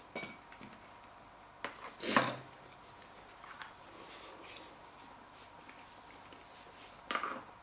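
A man's short, sharp breaths, loudest about two seconds in and again near the end, with quiet between; he is reacting to a mouth and throat burning from Carolina Reaper chilli.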